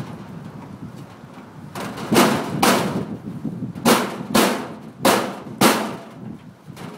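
Six short, harsh scraping knocks in three pairs from hands working on a metal fluorescent light fixture.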